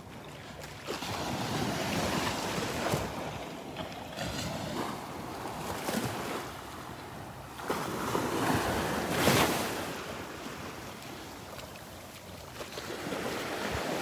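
Small waves washing up the sand and draining back at the water's edge, swelling louder twice, with some wind on the microphone.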